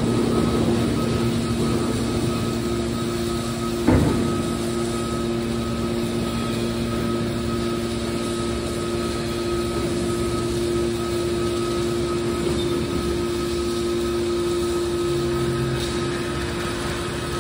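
Heavy machinery running steadily with a constant hum, and a single knock about four seconds in.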